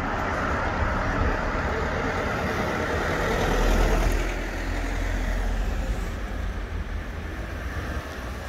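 A road vehicle passing along the street: a steady rush of engine and tyre noise that swells to its loudest just before four seconds in, then fades.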